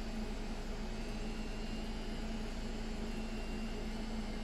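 EXO-clone rotary tattoo machine running with a steady motor buzz while its power supply is turned up to about 10 volts.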